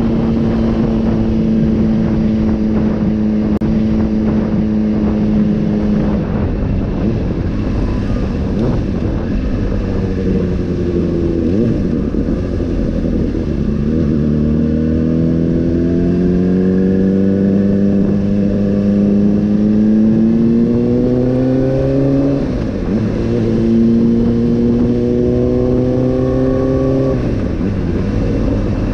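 Honda CBR600RR's inline-four engine running under way: a steady note for the first several seconds, then the pitch falls and climbs repeatedly as the bike accelerates through the gears, with quick drops in pitch about two-thirds through and near the end.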